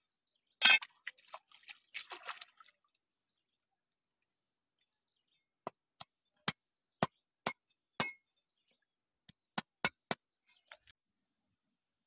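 Knife chopping fish on a cutting board: about a dozen short, sharp knocks in two runs in the second half. Before them, a short burst of splashing and scraping in the water.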